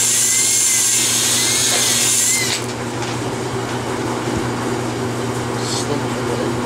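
Cordless drill spinning a cylinder hone in a Honda Shadow 750 cylinder bore: a loud abrasive hiss with the drill motor's whine wavering in pitch. It stops abruptly about two and a half seconds in, leaving a steady low hum.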